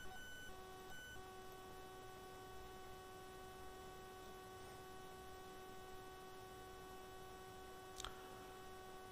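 Near silence with a faint steady electrical hum, a single tone with overtones that drops out briefly twice in the first second and a half. One short click about eight seconds in.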